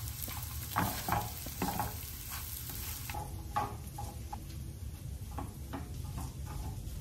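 Chicken and sliced onions sizzling in a nonstick frying pan while being stirred and turned with tongs, with repeated scrapes and taps of the tongs against the pan.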